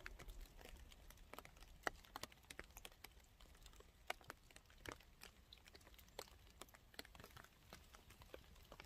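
Light rain, faint, with scattered raindrops and drips tapping at irregular intervals, a few louder single drops among them.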